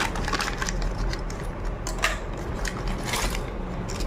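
Sewing machine accessory box being opened and its small plastic and metal parts handled, with scattered clicks and light rattles and a couple of sharper ticks.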